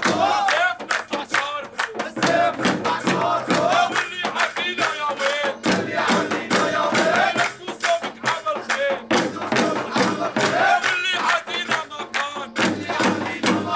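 A group of men chanting a traditional wedding song together over a steady, fast frame-drum beat and hand clapping.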